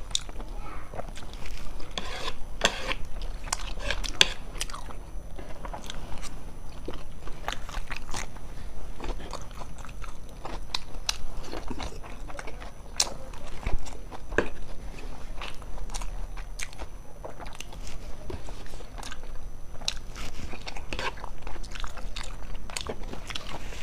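Close-miked mouth sounds of a person eating pig lung noodles: steady chewing and biting with many short clicks and smacks.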